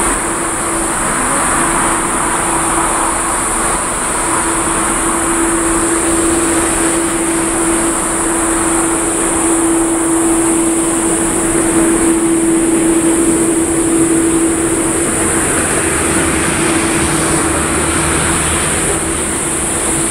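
Boeing 787-10 airliner taxiing with its jet engines at idle: a steady rushing noise with a steady hum that grows louder through the middle and eases off near the end.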